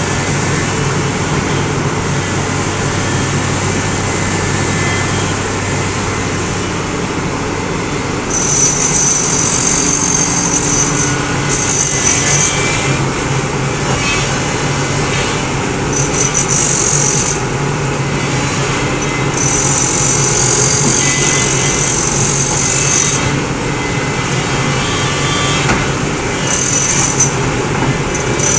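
SANY hydraulic excavator's diesel engine running steadily under load as the boom and bucket work the mud. From about a third of the way in, several bursts of high hiss come and go, each lasting one to three seconds, louder than the engine hum.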